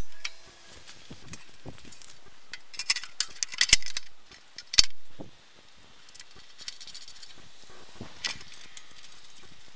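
Sheet-metal belt guard and its fastening hardware being handled and fitted onto a Wheel Horse garden tractor: scattered metal clanks and clinks, the loudest a cluster about three to five seconds in and another near eight seconds. The work is played back sped up.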